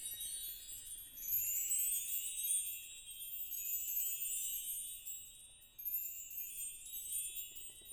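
Percussion trio playing high, ringing metallic tones in repeated overlapping cascades, chime- or glockenspiel-like, with nothing low underneath.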